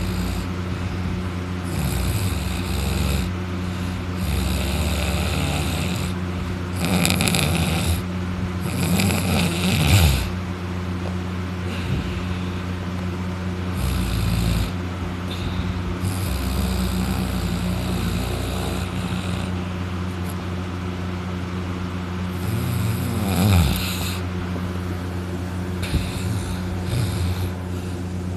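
A man snoring loudly in deep sleep, lying on his back with his mouth open, with a rasping snore every few seconds.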